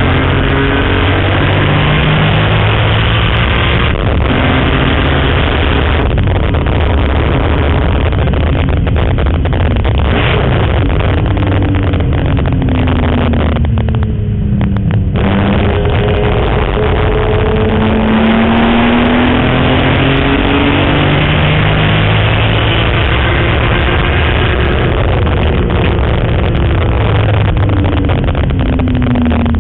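BMW M3 race car's engine heard from inside the cabin under hard acceleration on track. The pitch climbs through each gear and drops at the shifts, falls away briefly about halfway through as the car slows, then climbs again.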